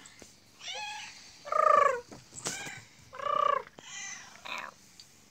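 Cat meowing: a series of about four separate meows, the second the loudest.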